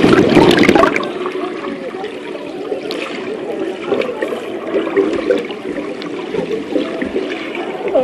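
Pool water heard by a submerged phone microphone: a loud splashing rush as it plunges in, then muffled underwater bubbling and gurgling.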